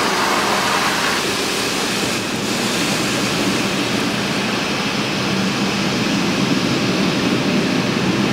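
Automatic car wash working over the car, heard from inside the cabin as a steady, loud rushing noise.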